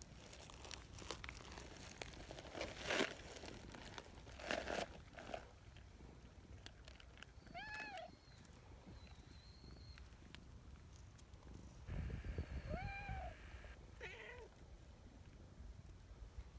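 A brown tabby cat gives three short meows, each rising then falling in pitch, one about halfway through and two close together near the end: the attention-seeking meowing of a jealous cat while another cat is stroked. A few soft rustles of hands on fur and clothing come in the first seconds.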